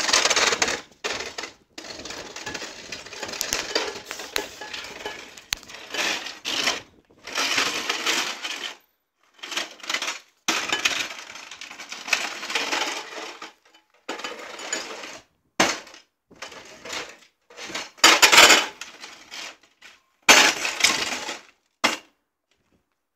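Cabrakan heavyweight combat robot driving and spinning in short bursts, its drive and chassis rattling and clattering over the ground. Each burst lasts a second or two and stops sharply.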